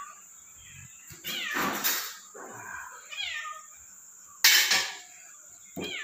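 A domestic cat meowing a few times, each meow a short call falling in pitch. A short, loud burst of noise cuts in about four and a half seconds in.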